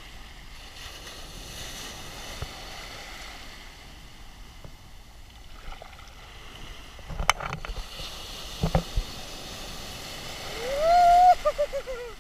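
Storm surf washing and foaming around a camera held low in the water, with a few sharp splashes a little past the middle. Near the end comes a single loud rising cry that holds, then wavers and trails off; it is the loudest sound.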